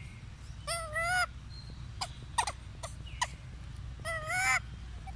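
Short, clear animal calls in two quick pairs, each call slightly rising, with a few sharp clicks between the pairs.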